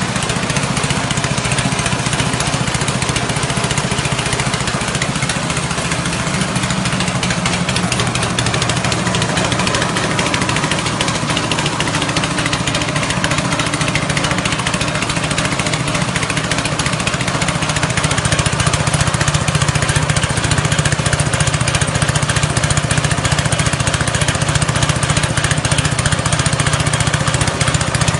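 A 6.5 hp petrol engine runs steadily, belt-driving a rice-husk grinding mill that is milling husks into fine bran. The engine's drone sits under a dense, even grinding rush, which grows a little louder about two-thirds of the way through.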